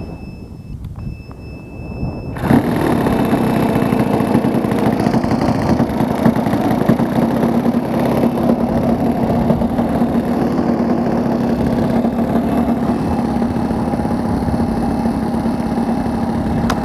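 A model aircraft's glow-fuel engine starts suddenly about two seconds in and then runs steadily and loudly. It follows a few short, high electronic beeps.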